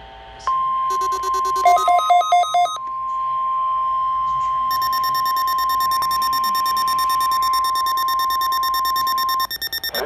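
NOAA Weather Radio warning alarm tone sounding from Midland weather radio receivers during the required weekly test: one steady, loud tone held about nine seconds. Rapid electronic beeps are layered over it in its first few seconds, and a second, shriller alarm tone joins about halfway through.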